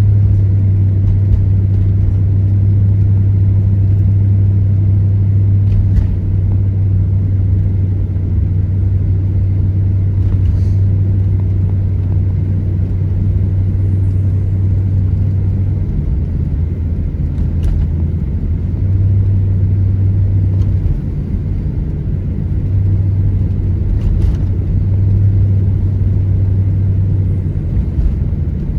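Car road noise heard from inside the cabin while driving on snowy roads: a steady low rumble of tyres and engine, with a few faint ticks now and then.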